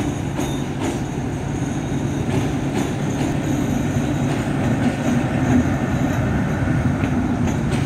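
Diesel-hauled passenger train rolling slowly into the station: a steady low rumble of the locomotive engine and wheels on rails, with a few faint clicks, growing slightly louder as it passes.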